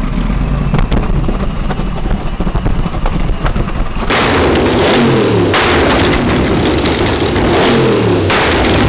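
Twin-turbo Chevrolet LSX 376-B15 V8 drift-car engine running rough and lumpy with crackles. About four seconds in the sound switches abruptly to a louder stretch of repeated hard revs, the pitch rising and falling several times.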